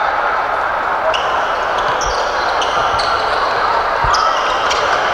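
Futsal play on an indoor court: shoes squeaking on the court floor again and again, and the ball thudding twice, about two and four seconds in, over a steady crowd murmur.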